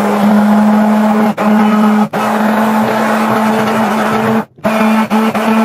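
Hand-held immersion blender running in crêpe batter, a steady motor hum that drops out briefly a few times and stops and restarts about four and a half seconds in. It is blending out lumps in the batter.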